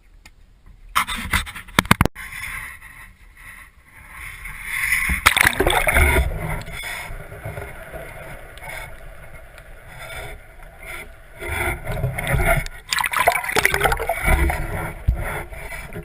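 Water sloshing and splashing around a small fishing boat, with sharp knocks and scrapes about a second in and two long surges of water noise later on.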